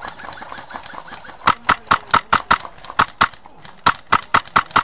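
Airsoft rifle firing rapid shots, about five a second, in runs with short breaks. The shots begin about a second and a half in, after a stretch of fainter quick ticking.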